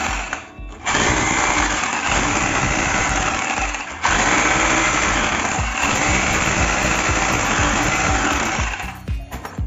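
Electric rotary hammer with a flat chisel bit chipping a channel into a concrete wall: a continuous rapid hammering that pauses briefly just after the start and again for a moment about four seconds in, and stops near the end.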